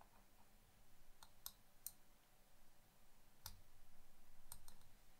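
Faint, scattered clicks of fine metal tweezers picking at a photo-etch fret and tiny etched parts, about six ticks in all. The loudest, about three and a half seconds in, has a light knock under it.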